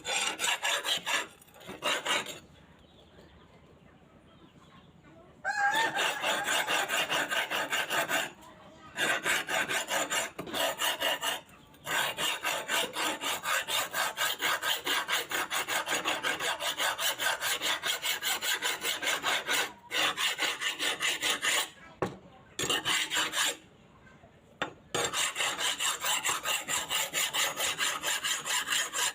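Rapid back-and-forth rasping strokes of hand abrasion on the steel blade of an old knife being restored, in runs of several seconds broken by short pauses.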